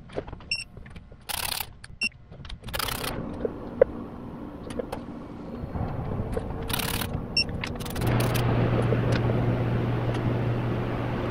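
Sharp metallic clinks and handling noises as bolts are fitted by hand into an engine's oil pump. About eight seconds in, a steady low hum starts and becomes the loudest sound.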